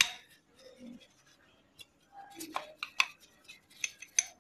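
Irregular sharp metallic clicks and clinks from a motorcycle's front brake plate and speedometer drive parts being handled during cleaning.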